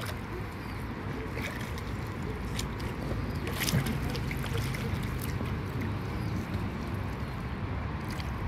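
Water lapping and splashing against a small boat moving across a lake, with a few short splashes over a steady low rumble.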